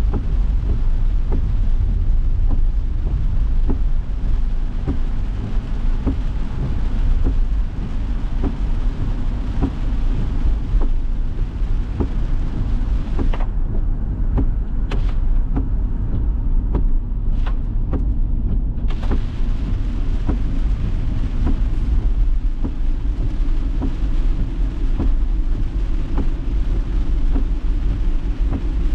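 Heavy rain pattering and ticking on a moving car's windshield and roof over a steady low road rumble, heard from inside the car. About halfway through, the rain noise drops out for several seconds as the car passes under a bridge, then comes back.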